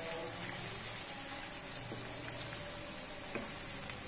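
Onion, garlic, ginger and green chilli paste sizzling in hot oil in a wok as it is stirred with a wooden spatula, with a steady frying hiss and scattered small crackles. The paste is being fried until fragrant, before tomatoes go in.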